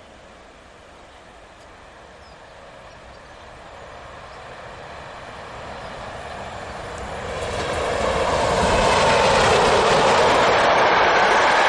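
PKP EP07 electric locomotive and its passenger carriages approaching fast and passing close by. The noise of wheels on rails grows steadily louder, rises sharply about seven to nine seconds in as the locomotive reaches the spot, and stays loud as the carriages go past.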